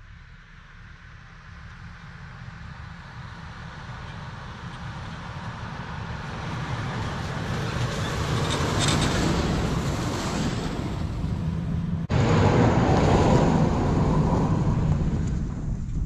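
Ford F150 4x4 pickup driving slowly through snow, its engine and tyres growing louder as it approaches. About twelve seconds in the sound jumps abruptly louder, then eases off as the truck pulls away.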